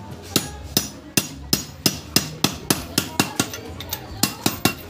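Hammer striking metal transmission parts: about a dozen and a half sharp, ringing blows at roughly three a second, coming faster near the end.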